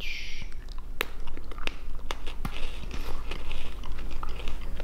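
Crunching and chewing on thin, crisp, blueberry-coated biscuit sticks close to the microphone: a string of sharp, irregular snaps.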